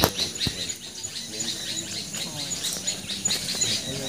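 Small birds chirping in roadside vegetation, one high short call repeating about three times a second among other chirps. A sharp knock comes right at the start.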